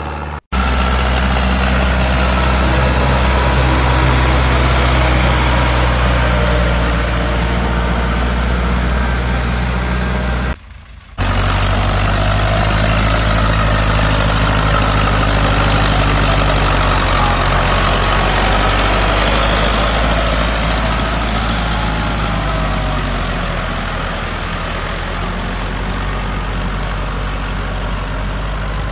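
A heavy engine running steadily at a low, even idle, with a faint whine that rises and falls in the middle stretch. The sound cuts out briefly twice, about half a second in and again about 11 seconds in.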